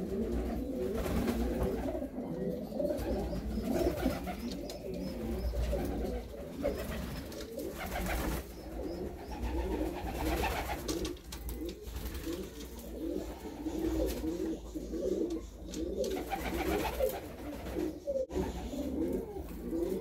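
Several homing pigeons cooing, their low, wavering calls overlapping throughout, from birds paired for breeding.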